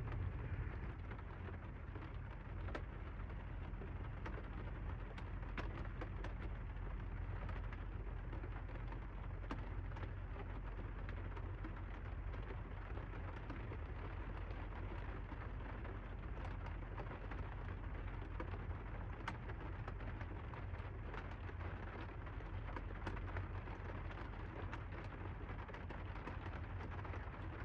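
Rain beating on the roof of a van: a steady patter with many separate drop ticks, over a low steady hum from the van's heater.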